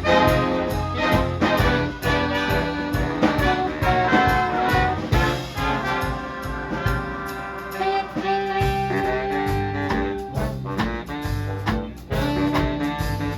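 Big band jazz playing: a brass section with trumpets and trombones over a steady beat.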